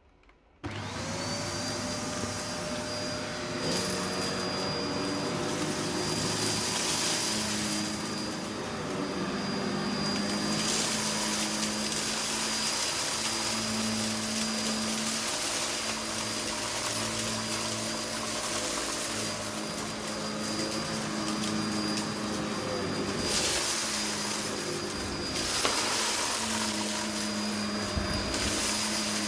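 Vacmaster Captura vacuum cleaner switched on about half a second in, its motor spinning up quickly to a steady high whine and running on.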